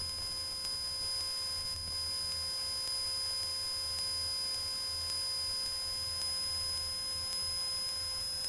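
Steady electrical hum and a thin high whine on a light aircraft's intercom audio line, with a faint low pulsing underneath, while nobody keys a microphone.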